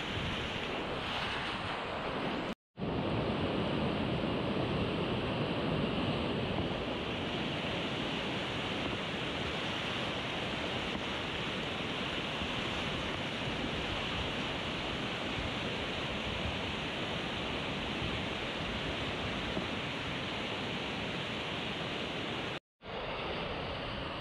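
Whitewater rapids of the Kananaskis River rushing and churning close around a kayak, the river running high on a raised dam release of about 55 cubic metres per second. A steady noise, dropping out for an instant twice.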